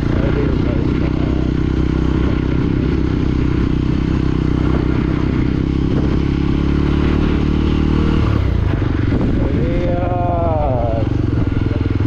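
Motorcycle engine running while riding, with a steady engine note that changes and drops lower about eight seconds in.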